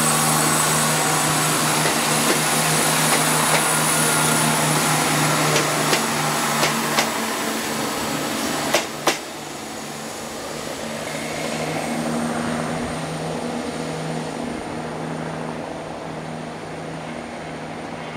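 CrossCountry Class 170 Turbostar diesel multiple unit passing, its underfloor diesel engine running with a steady hum and its wheels clicking over rail joints, ending in two sharp clicks about nine seconds in. After that a quieter, steady diesel hum as another Class 170 approaches.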